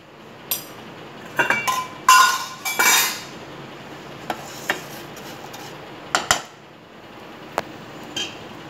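Metal ladle scraping and clinking against a nonstick kadhai while stirring a dry mix of flattened rice, peanuts and cornflakes. A run of scrapes with short metallic ringing comes about one to three seconds in, then only occasional single taps.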